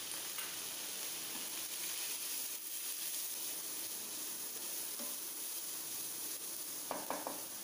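Cabbage, carrot, beans and capsicum sizzling in a hot frying pan with a steady hiss as they are stir-fried, with a few light clicks near the end.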